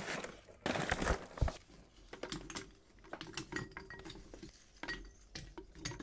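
Lumpwood charcoal rustling out of its paper sack, then many light clicks and knocks as lumps of charcoal are set around a crucible in the base of a small charcoal-fired melting furnace.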